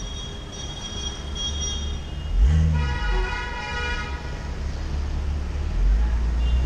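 A vehicle horn sounds one honk lasting about a second and a half, a little under halfway through, over a steady low rumble of traffic and wind. Before it, a thin high squeal comes and goes.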